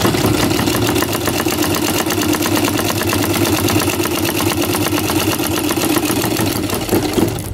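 Yamato straight-stitch sewing machine running fast, stitching denim in a steady, even rhythm; it stops just before the end. Its hook timing is newly reset and it sews without skipped stitches.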